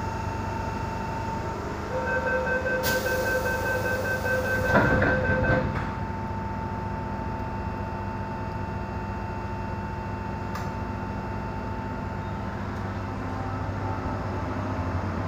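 Door-closing warning beeps of an MTR M-Train sound for about three and a half seconds, with a hiss. About five seconds in, the sliding saloon doors shut with a thud. After that comes the steady hum of the train's equipment while it stands at the platform.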